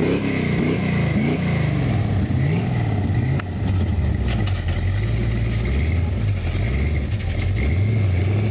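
Lifted four-wheel-drive pickup truck's engine revving up and down repeatedly as it pulls through a deep mud hole. From about halfway through it settles to a steadier, lower note with a few small changes in pitch.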